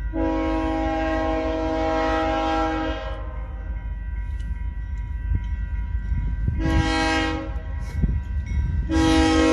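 Train horn sounding a steady multi-note chord in three blasts: a long blast of about three seconds, a short one about six and a half seconds in, then another long one starting near the end. A steady low rumble from the passing train runs beneath it.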